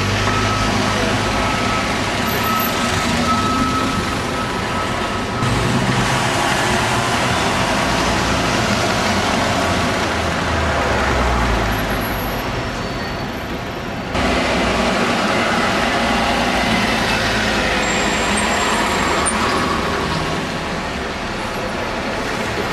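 Steady city street traffic: double-decker buses and cars running past with diesel engine noise and tyre hiss. The sound shifts abruptly about five and fourteen seconds in.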